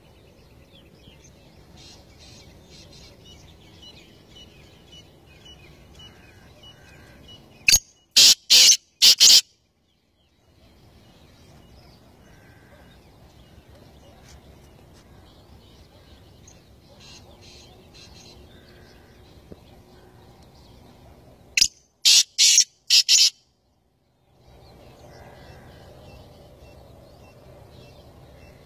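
Black francolin calling loudly twice, about 14 seconds apart: each call is a quick run of about five sharp notes lasting under two seconds. Faint chirps of other birds in between.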